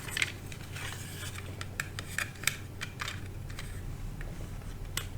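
Irregular small clicks and taps of cut pin headers and hand tools being handled and fitted into a circuit board, several in quick succession about two seconds in, over a steady low hum.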